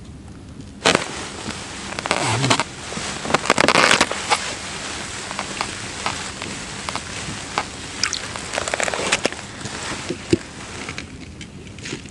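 Close rustling and crunching handling noise, with sharp clicks. It is loudest for a few seconds starting about a second in, then settles into lighter scattered clicks and rustles.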